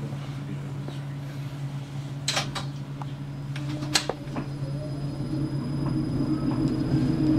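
Electric tram humming steadily on board as it runs, heard from the cab, with a few sharp clicks and rattles about halfway through. The hum grows louder near the end.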